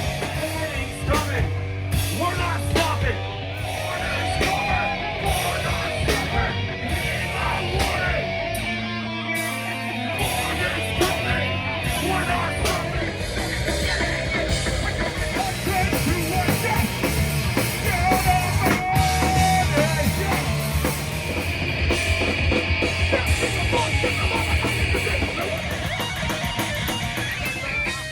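Live punk rock band playing loudly: guitars, pounding drums and yelled singing.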